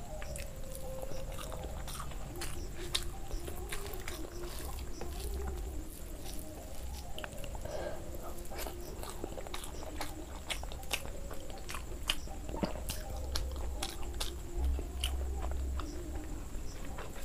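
Close-miked chewing and wet mouth smacks: a steady run of sharp clicks as a mouthful of rice mixed with curry is eaten by hand.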